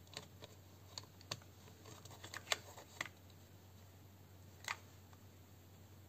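About half a dozen faint, irregular clicks and taps of small parts being handled: an airsoft gun's gearbox being checked by hand.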